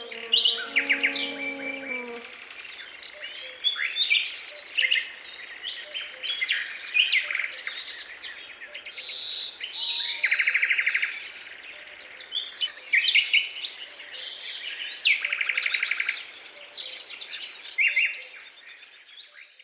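Several songbirds singing and calling together: short chirps, whistles and rapid trills overlapping one another. A low held musical chord sounds underneath for the first two seconds and then stops.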